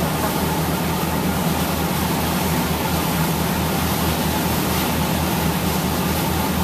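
A boat's engine running steadily with a low, even throb, under a constant rush of churning wake water.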